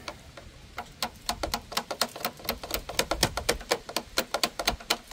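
Hand ratchet wrench clicking in quick runs of strokes, several clicks a second, as bolts are tightened.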